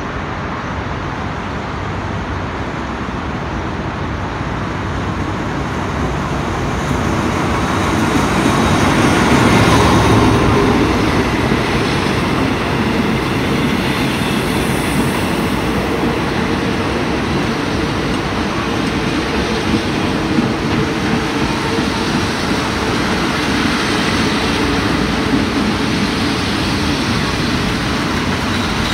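Diesel-hauled passenger train pulling into a station. The locomotive comes up and passes loudest about ten seconds in, and then the carriages roll by with a steady rumble and occasional clacks of the wheels.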